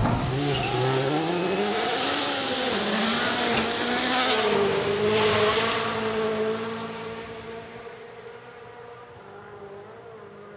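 Rally car engine revving hard, its pitch climbing and dropping with each gear change, then holding steadier as the car pulls away and fades into the distance.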